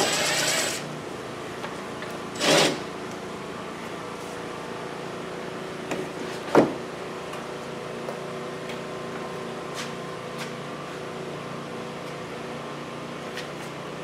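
Handling and tool noises while working the plastic inner fender liner free: a brief scraping rustle at the start, a louder one about two and a half seconds in, and a single sharp click near the middle, over a faint steady hum.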